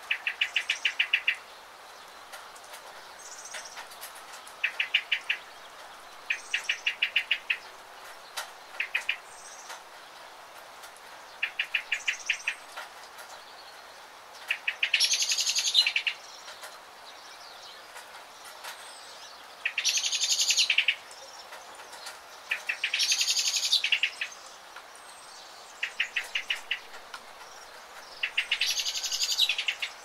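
Small birds calling over the steady hiss of light rain: short, rapid trills come every few seconds, and from about halfway through, longer, louder buzzy calls come four times.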